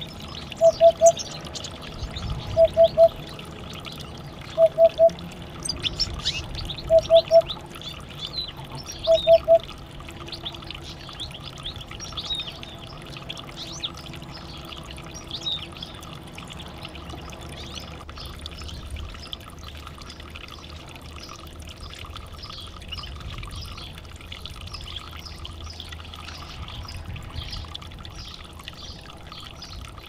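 Canaries chirping faintly in short, high calls. Over the first ten seconds, a loud triple pip at one steady mid pitch sounds about every two seconds, five times, then stops.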